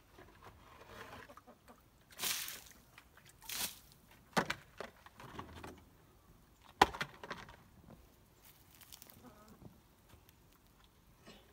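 Handling noises at a chicken coop: two short rushes of noise, then a few sharp knocks, the loudest about seven seconds in, as a plastic basin is handled and set down and the coop is reached into.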